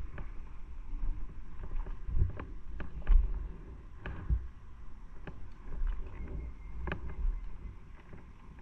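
Wind and motor noise on the microphone of a moving motorcycle: an uneven low sound that swells and fades, with scattered sharp knocks.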